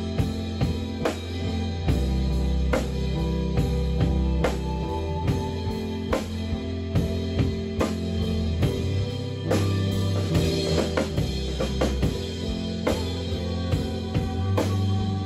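A band playing live: a drum kit keeps a steady beat of bass drum and snare hits under sustained low notes and other instruments.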